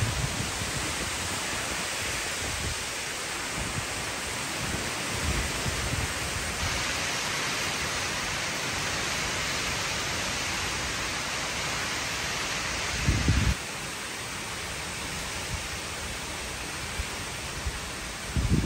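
Heavy tropical rain pouring steadily in a strong wind through palm trees. There are uneven low gusts and two short, loud low rumbles, about 13 seconds in and again at the very end.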